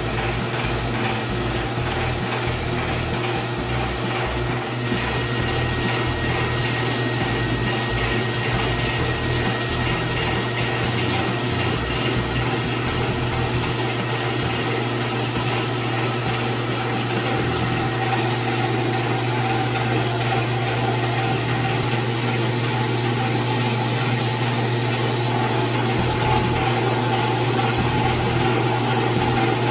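Small electric screw oil press running steadily with a constant low hum while it presses cacao nibs.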